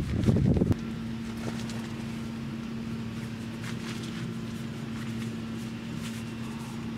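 Wind buffeting the microphone, cut off abruptly less than a second in, followed by a steady low hum and faint intermittent rustling of nylon fabric as a self-inflating sleeping pad and its stuff sack are folded and rolled up.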